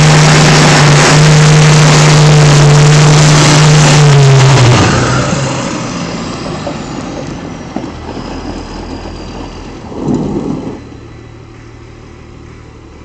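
Lifted pickup truck's engine held at high revs in a burnout, with the spinning tires adding a loud hiss. About four and a half seconds in the revs drop and the sound fades, with one short rev near ten seconds before it settles low.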